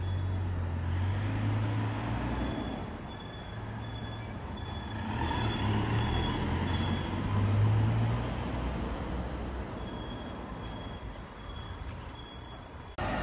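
Street traffic: a motor vehicle's engine rumbling close by, swelling and easing, with a faint high-pitched beep repeating in the background.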